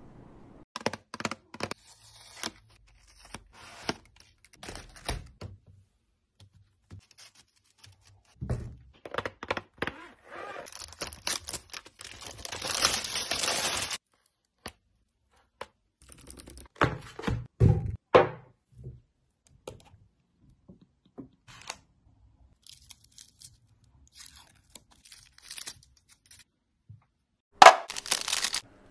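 Candy packaging being handled and sweets put into a plastic divided tray: scattered clicks and taps, dull thunks, and a few seconds of wrapper tearing and rustling about halfway through. A louder rip of plastic packaging comes near the end.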